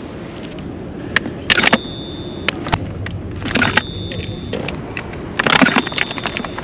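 An edited jingling chime sound effect, three times about two seconds apart, each ending in a held high ringing tone; it marks a catch counter ticking up.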